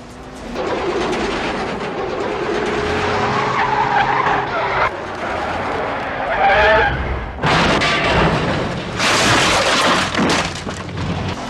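Car engines running and tyres skidding and squealing, heard across several film shots that cut in and out abruptly.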